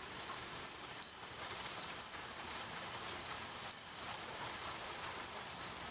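Night insect ambience: crickets chirping, a steady high trill with short chirps repeating at an even pace.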